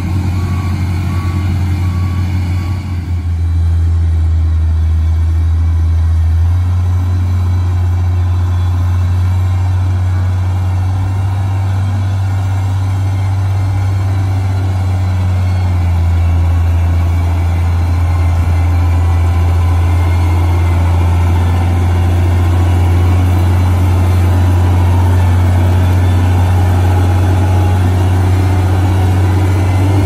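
Heavy diesel engines of a wheel loader and a LiuGong 4200 motor grader running steadily under working load. A reversing alarm beeps repeatedly at the start, then stops, and the engine note shifts a few times as the machines work.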